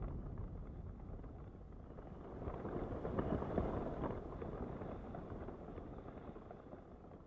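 Wind rumbling without any steady tone, swelling about three seconds in and then dying away.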